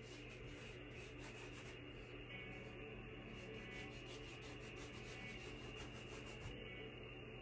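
Paintbrush scrubbing paint onto a stretched canvas: a quick run of faint scratchy strokes, several a second, that stops near the end.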